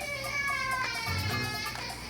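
Background music with low bass notes, and over it a high, slowly falling whimpering cry from someone having a bad dream.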